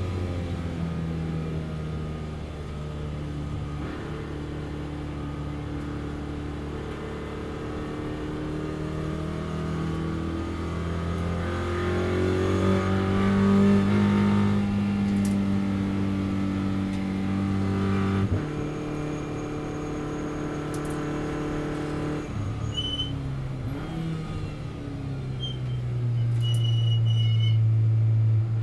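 Audi RS3 LMS race car's 2.0 TFSI engine heard from inside the cockpit at speed on track: it holds a steady pitch at high revs, drops sharply when the driver lifts off about two thirds of the way in, and pulls hard again near the end as it accelerates out of a corner.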